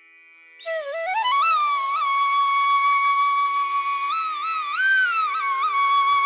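Background music: a solo flute melody that slides up into a long held note, decorated with quick bends and turns, over a faint steady drone.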